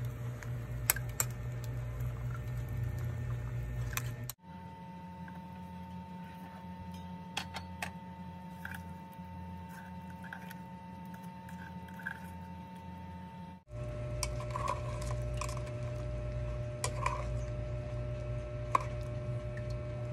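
Metal spoon stirring chicken pieces in coconut milk in a metal pot, with scattered clinks and scrapes against the pot over a steady low hum.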